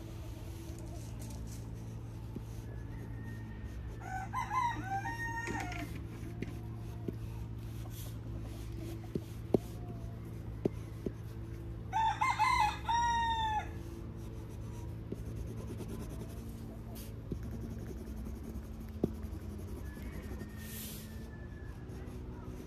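Rooster crowing twice, several seconds apart, each crow a pitched call ending in a held note, over a steady low background hum.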